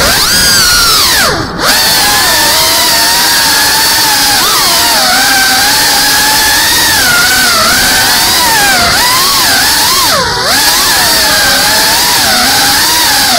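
CineLog 35 cinewhoop FPV drone's motors and propellers whining, the pitch wavering up and down with the throttle. Twice, about a second and a half in and about ten seconds in, the throttle is cut and the whine drops sharply in pitch before climbing back.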